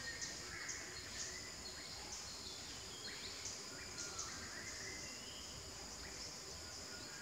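Forest ambience: a steady, high-pitched insect drone that pulses every half second or so, with short whistled bird notes a few times.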